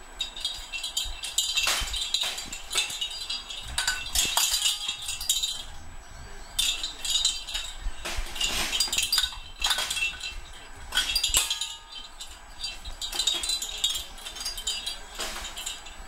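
Bell inside a parrot's jingle ball jingling in bursts of a few seconds with short pauses between, as an Eclectus parrot plays with it on the cage floor.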